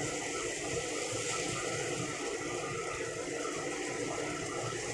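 Chicken pieces sizzling in hot oil in a frying pan, a steady hiss.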